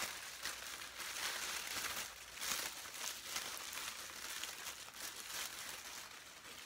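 Honeycomb kraft packing paper and white tissue paper crinkling and rustling as they are unwrapped by hand, a continuous dense run of crackles.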